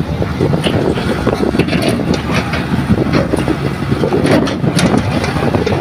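Heavy earthmoving machinery's diesel engine running steadily with a low rumble, with scattered short knocks over it.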